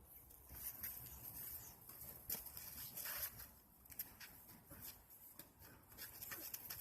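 Dogs scuffling and tugging, with faint scraping, rubbing and scattered clicks.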